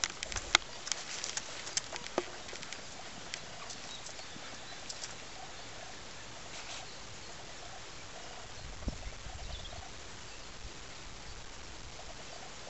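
Outdoor hiss with wind rumbling on the camera microphone about nine seconds in. A scatter of sharp clicks and taps from handling the camera comes in the first two seconds.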